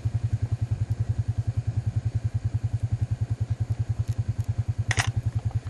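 Small vehicle engine idling with a fast, even beat, cutting off right at the end. A short sharp click about five seconds in.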